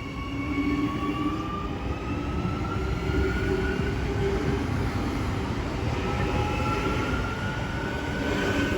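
Adelaide Metro 4000 series electric train accelerating: its traction motors give a whine that climbs steadily in pitch over the rumble of the train, with a second rising whine coming in about six seconds in.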